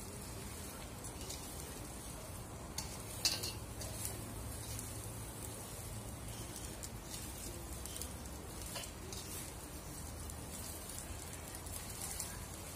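Chicken masala sizzling as it fries in a wok while it is stirred with a plastic spatula, with a few sharp scrapes and knocks of the spatula against the pan, the loudest about three seconds in.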